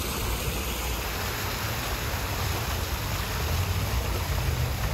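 Steady rushing outdoor noise with a wavering low rumble underneath, as of wind and street traffic.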